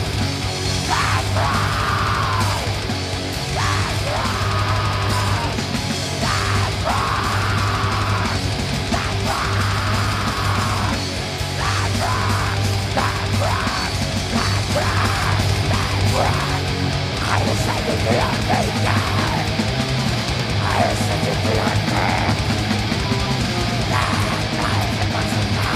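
Live black metal played at full volume: distorted guitars and drums, with harsh vocals sung into a microphone that come in phrases every few seconds.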